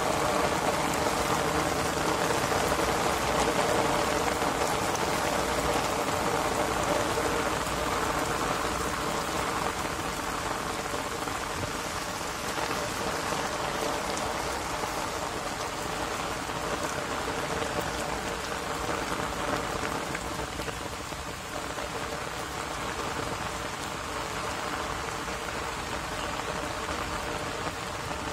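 Heavy rain pouring onto wet paving, a steady hiss that eases a little about ten seconds in.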